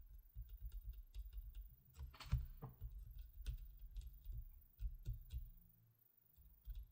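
Fingers tapping and handling the packaging of a GoPro Hero 4 Silver close to the microphone: a quick run of soft taps and clicks, with a short scraping rustle a little after two seconds in.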